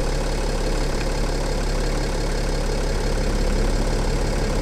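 Mercedes-Benz W211 320 CDI's V6 diesel idling steadily, with the Airmatic air-suspension compressor kicking on about three seconds in, adding a deeper hum under the idle as it raises the car.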